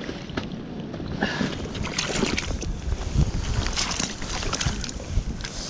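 Wind buffeting the microphone as a low rumble, with scattered short knocks and rustles of handling.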